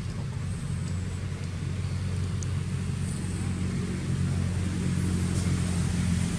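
Motorbike engine running with a steady low rumble, getting louder about four seconds in.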